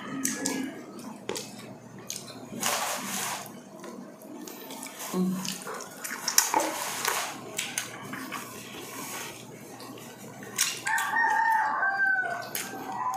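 Close-up mukbang eating sounds: fingers picking at grilled fish, chewing and lip smacking, with scattered clicks and wet mouth noises. Near the end a rooster crows once in the background, a drawn-out call that falls away at its end.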